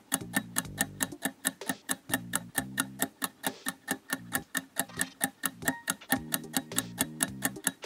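Countdown timer sound effect: a clock ticking rapidly and evenly, over quiet background music with low plucked notes.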